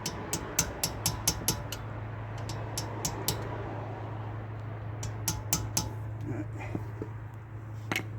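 Sharp metal taps driving a screwdriver against an Audi R8 front brake caliper's pad retaining pin to knock it out: a quick run of about eight taps, then scattered groups of taps, over a steady low hum.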